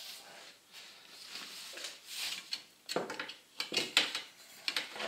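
Aluminium U-channel porthole frame being slid and handled against the edge of a glass pane, giving soft scraping and rubbing with a few light clicks, more of them in the second half.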